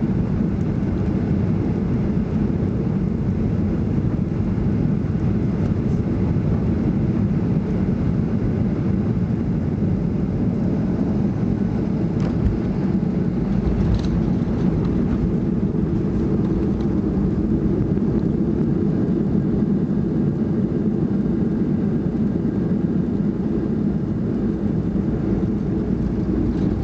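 Steady low rumble of a Boeing 737-800's CFM56 jet engines and the airflow around it, heard from inside the passenger cabin, with a few faint clicks.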